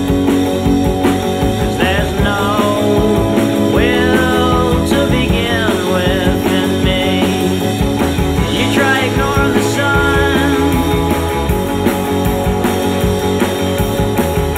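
Rock music soundtrack with a steady driving beat and gliding lead lines.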